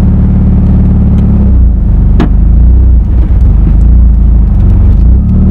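Mazda Miata's four-cylinder engine idling, heard from inside the cabin. About a second and a half in, the note changes and turns uneven as the clutch is let out to move off in reverse, with a single sharp click a moment later. Near the end it settles back to a steady idle.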